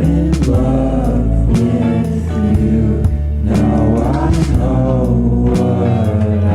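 Background song with a sung vocal melody over bass, guitar and a steady drum beat.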